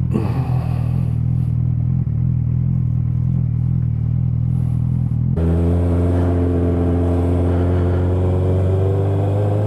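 Suzuki GSX650F's inline-four engine idling steadily. About five seconds in the sound switches abruptly to the engine running under way, its pitch slowly rising as the bike picks up speed.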